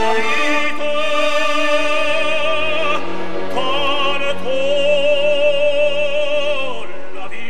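Operatic solo voice singing long, slow held notes with wide vibrato over orchestral accompaniment, a short higher phrase between two sustained notes, the last dropping away near the end; it is the singer's phonograph recording.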